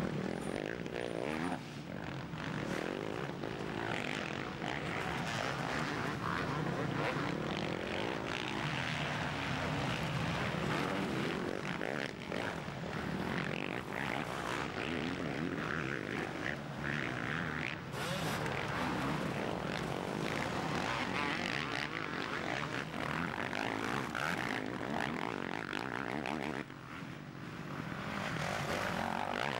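Motocross bike engines running hard, revving up and falling off as the bikes race past on the dirt track.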